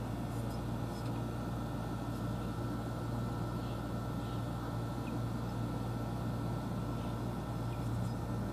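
Steady low background hum under a faint even hiss, with no distinct knocks or events.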